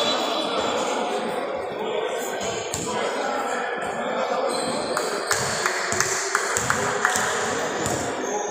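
Indoor basketball game: voices echoing around the hall, with the ball bouncing on the court and a run of short, sharp taps in the second half.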